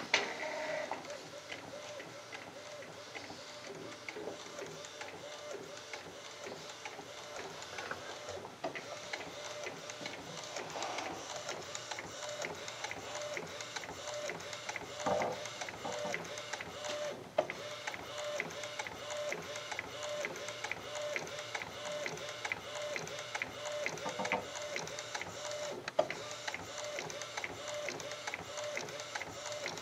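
Converted Epson inkjet DTF printer printing a film: the print-head carriage shuttles back and forth with an evenly repeating whir. A sharper click comes every nine seconds or so.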